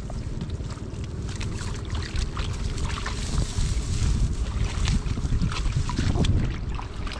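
Hands splashing and groping through shallow muddy water while feeling for fish, heaviest in the middle. A steady low wind rumble on the microphone runs underneath.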